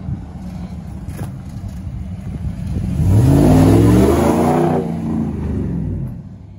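Pickup truck engine accelerating as the truck drives close past, its pitch rising for about a second and a half and loudest in the middle, then fading as it pulls away. A low steady engine rumble runs underneath before it.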